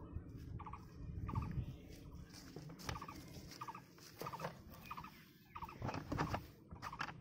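Red plastic bucket being set down and its lid worked open, giving sharp knocks and rattles, loudest about six seconds in. Behind it an animal repeats a short call of quick pulses about every three quarters of a second.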